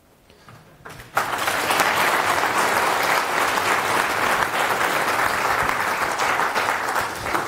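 Audience applauding, starting about a second in and going on steadily.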